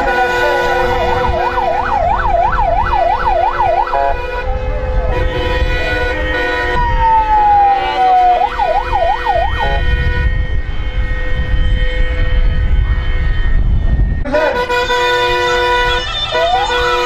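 Electronic vehicle siren sounding in two runs of rapid up-and-down yelp sweeps, with a slower falling wail between them and a rising one near the end. A steady held tone runs underneath, with a low rumble in the middle.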